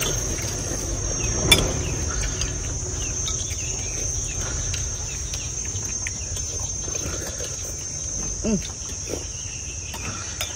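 Steady high-pitched drone of insects, with scattered clinks of spoons against porcelain soup bowls, one louder clink about a second and a half in.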